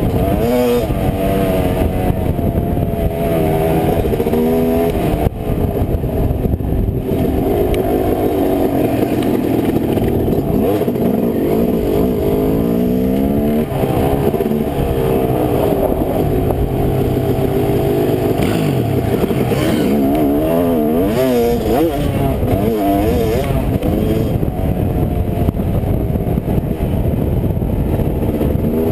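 2005 Yamaha YZ250 two-stroke dirt bike engine running under way, its pitch rising and falling again and again with throttle and gear changes.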